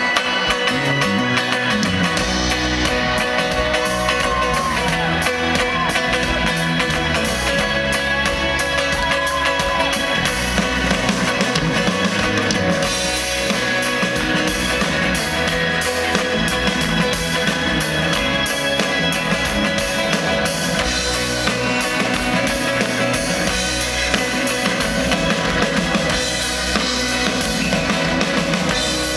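Live band playing amplified rock music with a drum kit, bass and guitars; the drums and bass come in about half a second in over the guitar.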